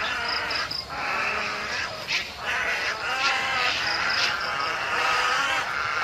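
A roosting colony of white egrets calling: a dense, continuous din of many overlapping calls. Short runs of a quick, repeated high note come through now and then.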